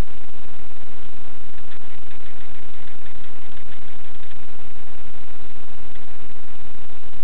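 Loud, steady static-like hiss with no distinct event in it.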